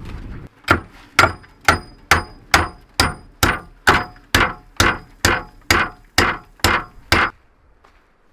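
Hammering: about fifteen evenly spaced blows, roughly two a second, each with a brief metallic ring, stopping a little after seven seconds in.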